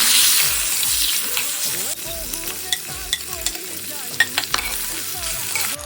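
Food sizzling as it fries in a hot pan, loudest at the start and easing about two seconds in, with scattered sharp pops and ticks.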